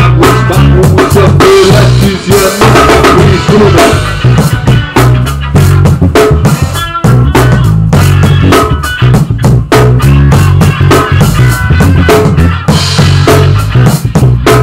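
Band recording of drum kit, bass and guitar playing together, with dense, rapid drum hits over a steady bass line.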